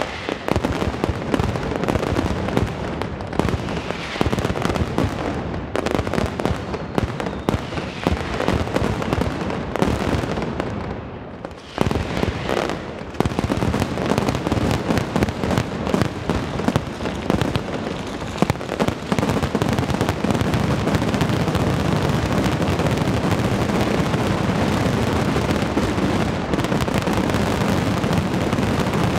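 Mascletà: strung firecrackers and masclets detonating in a rapid, continuous barrage of bangs. After a brief lull about eleven seconds in, they thicken into an unbroken, steady din of explosions, the build into the ground-level 'terremoto' finale.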